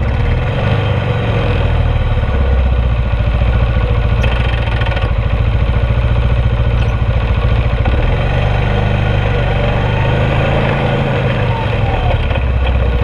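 ATV engine running steadily close by. Its pitch shifts about two-thirds of the way through, rising and falling as it is throttled.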